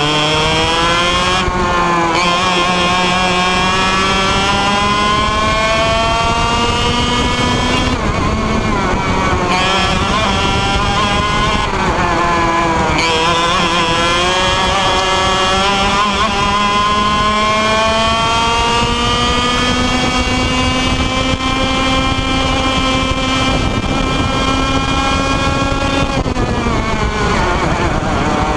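An IAME Leopard 125cc two-stroke kart engine at full throttle, recorded onboard. Its pitch climbs steadily along the straights and dips briefly as the driver lifts, about 2, 8 and 12 seconds in. After a long climb it falls sharply near the end as the kart slows for a corner.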